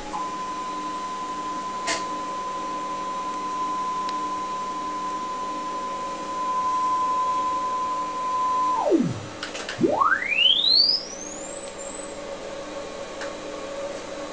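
Sony BVH-3100 one-inch Type C videotape recorder playing back a steady 1 kHz line-up tone from tape. About nine seconds in, the tone's pitch drops away as the tape slows to a stop. After a short break it sweeps steeply up to a high whistle as the tape speeds up in shuttle.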